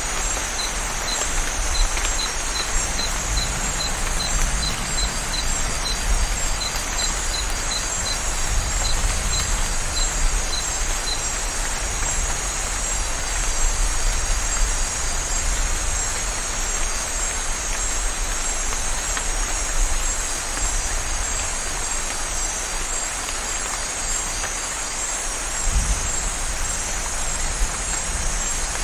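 Steady heavy rain in a rainforest at night, with a continuous low rumble of thunder that swells briefly near the end and a steady high chorus of night creatures over it. A high repeated pip, two or three a second, sounds through the first third and then stops.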